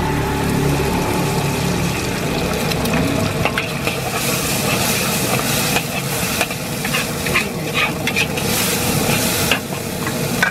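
Hot oil sizzling in a wok as chopped aromatics and then egg fry, with a spatula scraping and clicking against the wok from about three and a half seconds in.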